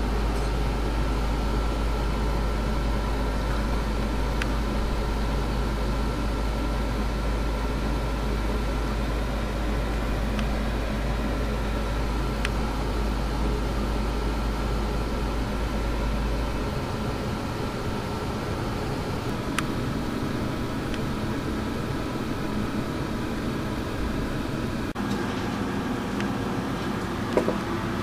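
Steady mechanical hum of aquarium filter equipment, with a faint high whine over it. A deep low rumble under the hum drops away a little over halfway through, and there is a single sharp tick near the end.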